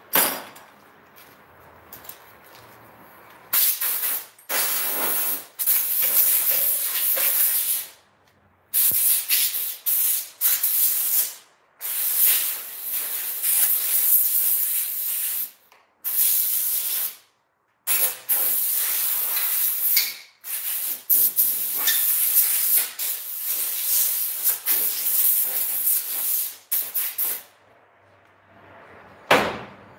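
Compressed air hissing from a tool on an air hose, in repeated bursts of a second to several seconds with short pauses between them.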